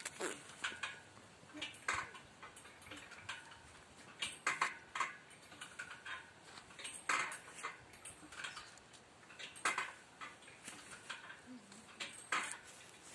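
Irregular short rustles and light clicks, every second or so, as a kitten scrabbles at dry grass and toys on paving stones.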